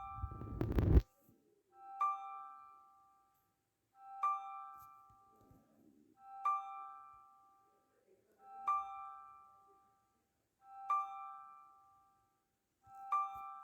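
Background music: the same short piano-like chord struck about every two seconds and fading each time. A brief loud rushing noise comes in the first second.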